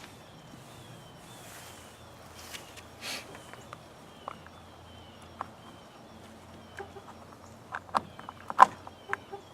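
Chainsaw parts being handled while the bar and chain are fitted, ending in a run of sharp clicks and knocks near the end, one much louder than the rest. A faint short chirp repeats steadily in the background.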